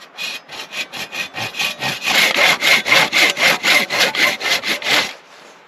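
Small hand saw cutting into a wet, debarked log in quick, even back-and-forth strokes, about five a second. The strokes are lighter at first, heavier from about two seconds in, and stop about five seconds in.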